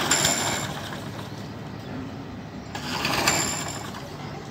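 Petrol engine of a Hayter walk-behind rotary lawnmower running steadily after being repaired, with two louder swells, near the start and about three seconds in.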